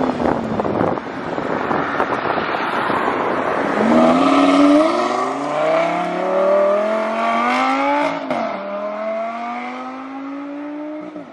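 Lamborghini Gallardo's 5.2-litre V10 accelerating hard away from the listener. Its pitch climbs steadily, dipping at two quick upshifts about five and eight seconds in, and the sound fades as the car draws off.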